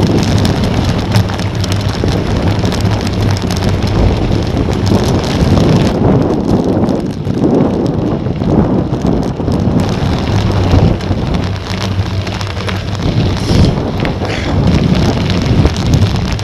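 Wind buffeting an action camera's microphone as a mountain bike rolls fast over a gravel track, with tyres crunching and frequent clicks and rattles from the bike over the bumps.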